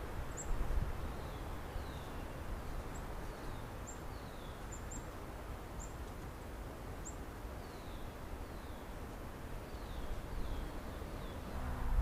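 Small birds calling at a distance: scattered short high chips and quick falling whistled notes, over a steady background hiss and low rumble.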